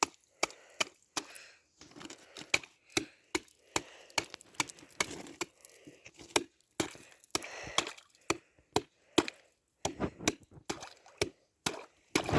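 Ice being chopped with a hand tool such as an ice chisel or axe: a long run of sharp strikes, about two to three a second, with short pauses and a little scraping between them.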